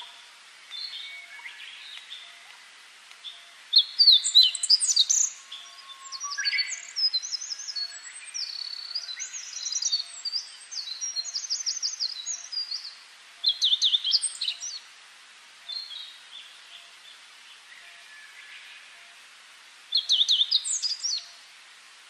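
Songbirds singing: phrases of quick high chirps and rapid trills with short gaps between them, loudest about four seconds in and again near the end.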